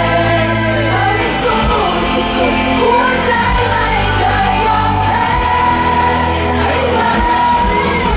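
A pop song performed on stage: a singer's amplified voice over pop backing music through a concert PA.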